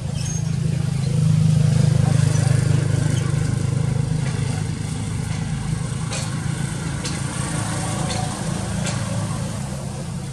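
A motor engine running steadily with a low hum that swells about a second in and eases after about three seconds, with a few faint clicks later on.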